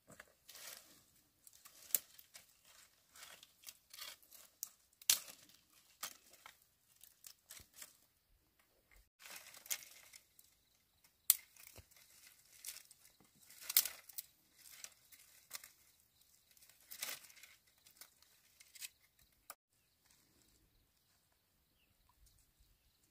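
Dry twigs and brushwood snapping and crackling as they are broken and gathered by hand. The sharp cracks come at irregular intervals with rustling between, and it stops near the end.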